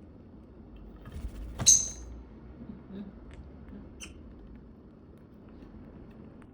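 Baby caique parrot giving one short, sharp, high squeak about a second and a half in, then a fainter chirp near four seconds, with a few soft clicks between.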